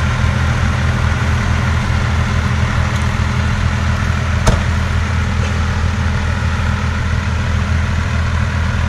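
Pickup truck engine idling steadily, with one sharp click about four and a half seconds in.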